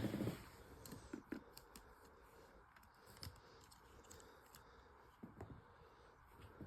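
Faint handling noise: scattered light clicks and soft rustles over low room hiss.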